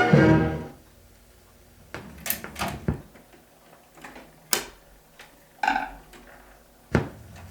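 An orchestral song ends in the first second, then the hiss and crackle of a shellac 78 rpm record's surface between tracks, with a handful of scattered sharp clicks and knocks, the loudest a little before the end.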